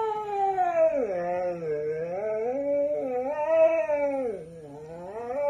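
Siberian husky 'talking': one long wavering howl-like yowl whose pitch slides down low and back up several times. It drops briefly softer about four and a half seconds in, then rises again.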